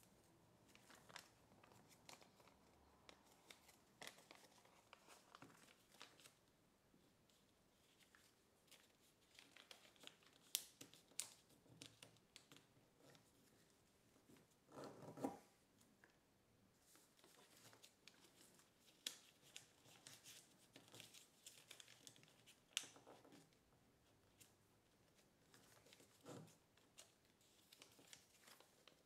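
Kraft paper crinkling and rustling as it is folded and creased by hand: faint, scattered crackles, with a longer, louder rustle about halfway through.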